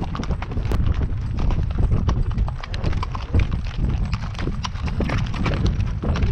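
Hooves of a walking string of pack mules clip-clopping irregularly on a rocky dirt trail, over a steady low rumble.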